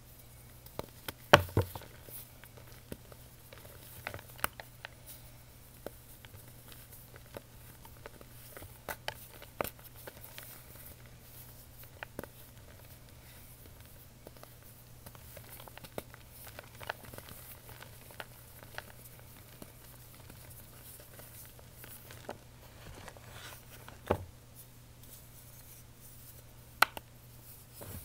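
Hands crumbling and pressing fine white reformed chalk powder: scattered soft crunches and sharp clicks, the loudest about a second in, over a faint steady low hum.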